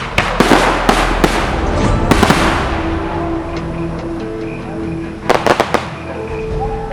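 Fireworks going off: a quick series of sharp bangs with crackling trails over the first couple of seconds, then a tight cluster of several more bangs about five seconds in.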